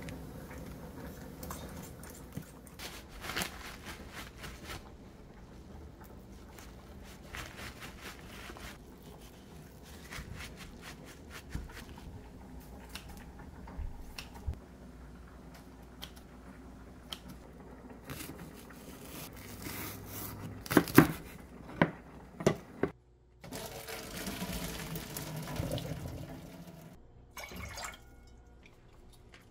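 Kitchen handling sounds: kitchen paper and kitchen scissors snipping thin-sliced raw beef, with many small clicks and a few louder knocks. Near the end, water is poured from a glass into a pot for a few seconds.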